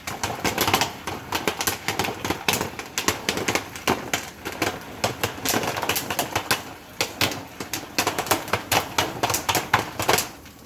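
Popcorn kernels popping rapidly inside a foil stovetop popcorn pan: a dense run of sharp, irregular pops.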